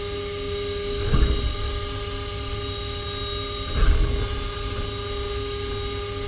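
CNC machine spindle running and cutting a miniature engine block: a steady whine over a low rumble, which swells briefly about a second in and again near four seconds in.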